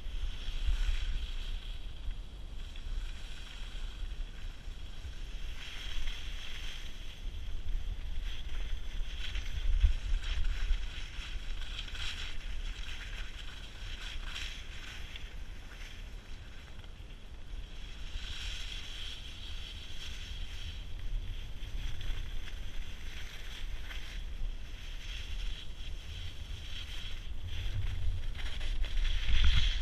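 Skis sliding and carving on packed snow, a steady hiss that swells and fades every few seconds, over a low rumble of wind buffeting the camera's microphone.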